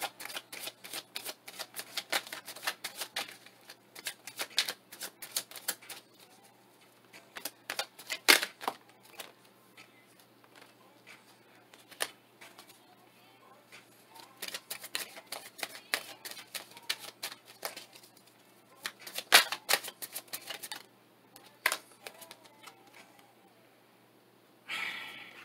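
A tarot deck being shuffled by hand: rapid runs of crisp clicking and slapping of cards, in two long bursts with a few louder single snaps and short pauses between.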